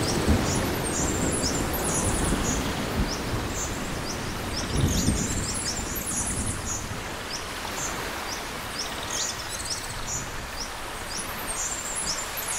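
Rain falling with thunder rumbling and birds chirping. The rumble fades at the start and swells again about five seconds in.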